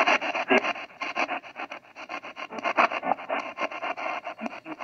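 Spirit-box radio sweeping rapidly through AM/FM stations: a choppy, rasping stream of static chopped many times a second, with clipped snatches of broadcast sound.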